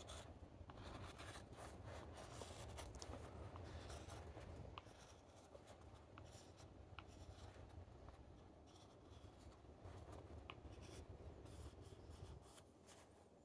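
Faint scraping and small ticks of a carving knife tip shaving the sharp inside edge off a wooden cup's rim, chamfering it. The scrapes are softer in the second half and stop shortly before the end.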